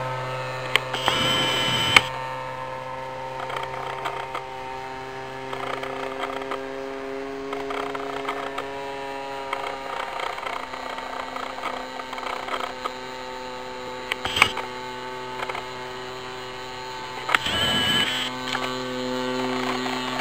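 Titan ZG20 20 cc two-stroke petrol engine of a radio-controlled Piper J3 Cub model aeroplane, droning steadily in flight, its pitch shifting a little now and then. A few brief clicks and whirs come up close by, about two seconds in and near the end.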